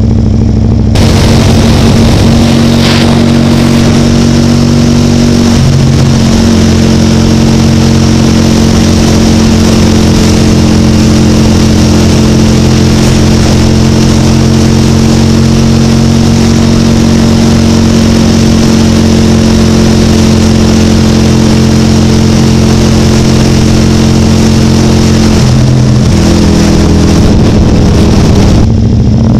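Can-Am Spyder three-wheeler's V-twin engine running at a steady cruise, loud, with wind and road noise; the engine note dips and recovers briefly a few times, as at gear shifts.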